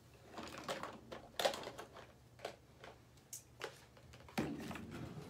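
Rustling and clattering of craft supplies being handled and moved about, with several sharp clicks and knocks among them.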